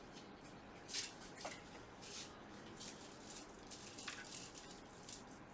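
Faint handling noise on a repair bench: a series of light scratchy clicks and rustles, the sharpest about a second in, as the tools and board are moved about for a multimeter check.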